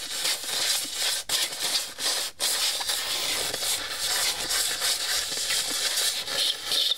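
Compressed-air blow gun hissing steadily as it blasts caked grass and dirt off the underside of a lawnmower deck, with two brief breaks in the blast about a second in and again about two and a half seconds in.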